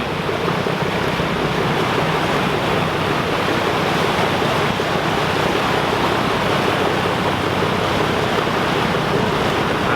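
Steady, even rushing of fast-flowing floodwater on a swollen river.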